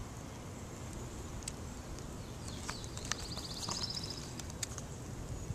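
A turtle biting and tearing at a lettuce leaf: scattered soft crisp clicks from its jaws on the leaf, several in the second half, over a low steady rumble. A brief high rapid trill sounds about three and a half seconds in.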